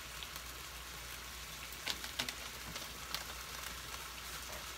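Frozen broccoli sizzling in a frying pan, a steady hiss from the water the thawing vegetables give off. A few sharp pops come around two and three seconds in.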